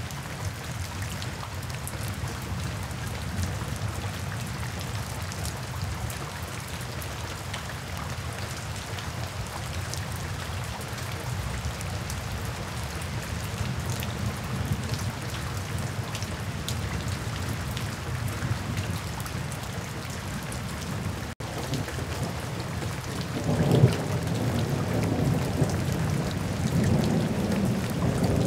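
Steady rain falling, with a low roll of thunder that swells about five seconds before the end and keeps rumbling. The sound cuts out for an instant about three-quarters of the way through.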